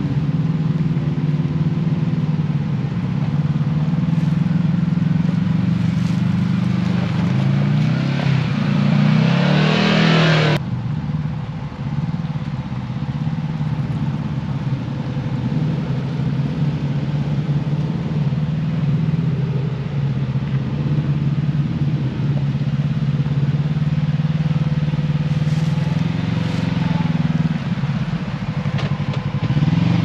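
Side-by-side UTV engines running on a steep trail climb. A close engine runs steadily, and about eight seconds in one revs up with a rising, harsh hiss that cuts off suddenly a couple of seconds later. Near the end an engine revs up again as a side-by-side pulls past close by.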